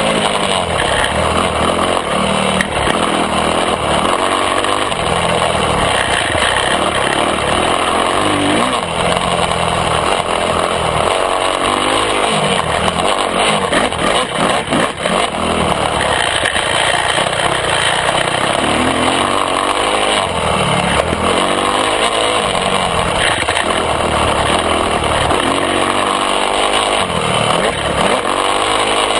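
Yamaha YZ250F dirt bike's single-cylinder four-stroke engine being ridden, its pitch rising and falling every second or two as the throttle is opened and closed, heard close up from a camera on the handlebars.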